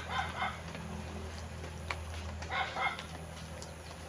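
Chickens clucking in short calls, one at the start and another about two and a half seconds in, over a steady low hum.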